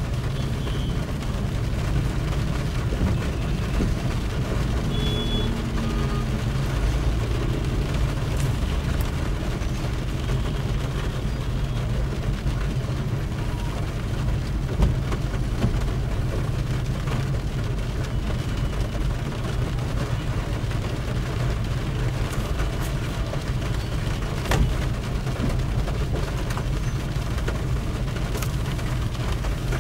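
Car driving on a wet road in rain: a steady low rumble of engine and tyres with a hiss of spray. A few short knocks come through, the loudest about halfway through and again near 25 s.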